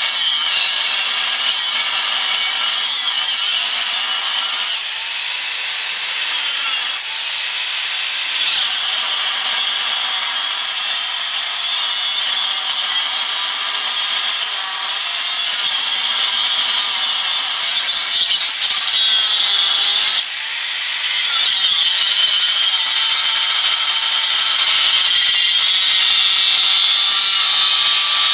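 Angle grinder with a cut-off wheel cutting through the aluminium bell housing of an old Volkswagen transmission case: a loud, steady, high-pitched grinding. A few times the wheel comes off the cut and the motor's pitch rises briefly before it bites again.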